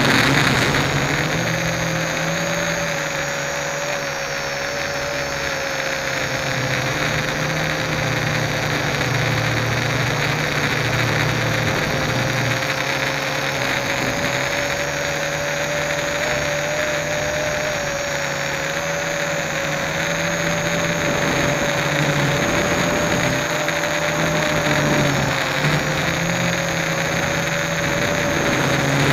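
Multirotor drone's electric motors and propellers running in flight, heard from the onboard camera: a steady buzzing whine whose pitch drifts slightly up and down over a broad rushing noise.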